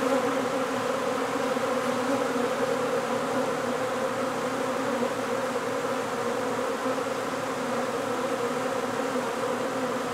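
A swarm of honeybees buzzing in a steady hum as they fly around and land at the entrance of a hive box, the swarm moving into its new hive.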